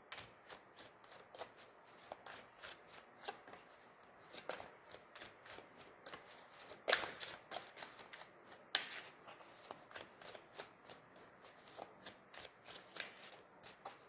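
A deck of tarot cards being shuffled by hand: a quiet, rapid run of light card clicks, with two louder snaps about seven and nine seconds in.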